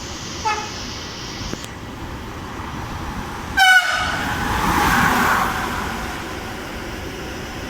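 Train horn sounding: a faint short toot about half a second in, then a loud short blast about three and a half seconds in, followed by the rush of a train passing through the station, swelling and fading.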